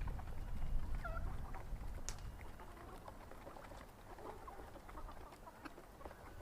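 Chickens clucking faintly, with a short call about a second in.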